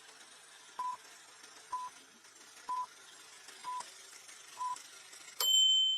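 Countdown timer sound effect: short, evenly spaced beeps at one pitch, about one a second, then a bright ringing ding near the end as the answer time runs out.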